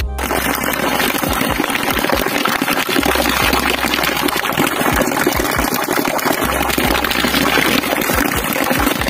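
A thin stream of water falling and splashing steadily into a shallow pool, a continuous loud rushing splash.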